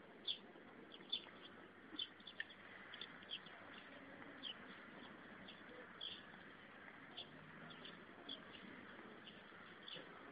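Faint outdoor quiet with small birds giving short, high chirps about once a second.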